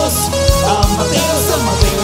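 Band music with drums: kick-drum thumps in a steady beat under a melodic line that slides up and down in pitch.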